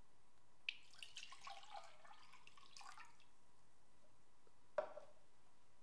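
Water poured from a plastic cup into a glass measuring jug, splashing and trickling for about two seconds. A single light knock follows about five seconds in.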